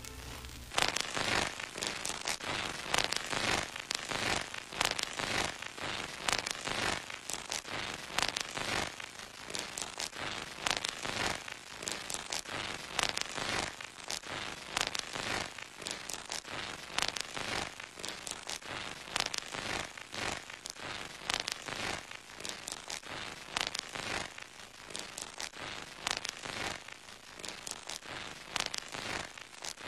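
Dense, irregular crackling: many sharp clicks and pops with no tone under them, starting about a second in just after violin music stops.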